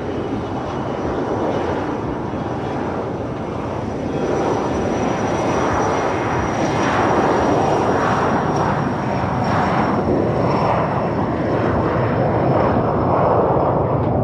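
Dassault Falcon trijet business jet on its takeoff roll at takeoff power: a rushing jet roar with a steady high whine, growing louder about four seconds in. Gusty wind buffets the microphone underneath.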